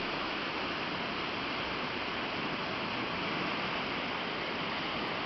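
Typhoon-swollen mountain stream rushing past: a steady, loud roar of fast water.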